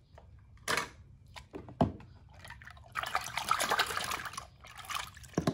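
A hand splashing and swishing in a plastic tub of water while fishing for die-cast toy cars. There are two short splashes in the first two seconds, then about a second and a half of sloshing starting around three seconds in.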